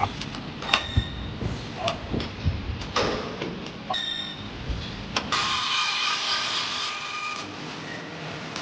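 A series of clicks and knocks, then a small electric motor in the van whirring steadily for about two seconds before stopping, as a powered auto-up function is tried out.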